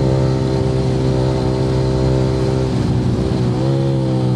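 Yamaha R15 V3's single-cylinder engine running through an aftermarket Akrapovic R9 exhaust under way, a loud steady note that breaks up briefly about three seconds in before settling again.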